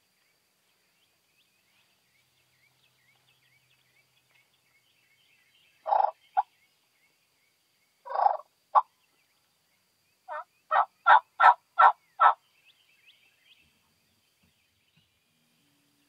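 Wild turkey yelping: two short two-note calls a couple of seconds apart, then a run of six yelps at about three a second, growing louder. Faint chirping of small birds and insects goes on behind.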